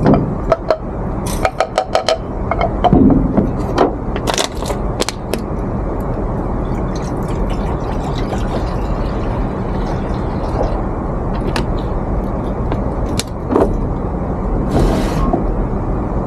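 Mortar and pestle pounding ginger: a run of sharp strikes in the first five seconds, then a steady low background rumble with occasional clinks and a short hiss near the end.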